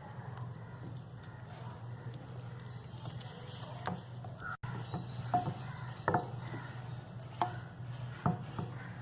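A spoon stirring and mashing khoa into a bowl of cooked grated carrot and sugar, with a few sharp taps of the spoon against the bowl in the second half, over a steady low hum.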